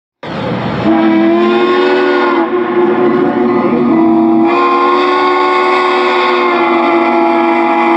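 Steam locomotive chime whistle sounding one long, loud blast of several notes at once. Its tone shifts slightly about two and a half seconds in and again around four and a half seconds.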